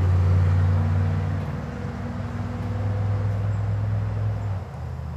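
A loud, steady low mechanical drone, like a motor running, that shifts slightly in pitch about a second and a half in and drops away suddenly near the end.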